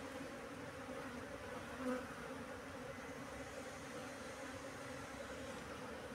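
Honeybees buzzing steadily around an exposed swarm cluster, with a brief louder buzz about two seconds in.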